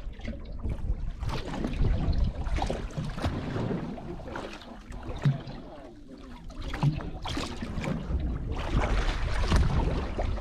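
Wind gusting across the microphone on a fishing boat at sea, with water slapping against the hull and a few small knocks; the loudness swells and falls with the gusts.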